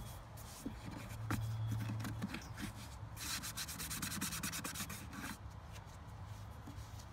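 Microfiber towel rubbing over the car's painted metal bodywork, wiping off degreaser and grime: scattered scrapes, then about two seconds of quick back-and-forth scrubbing strokes midway, over a faint low hum.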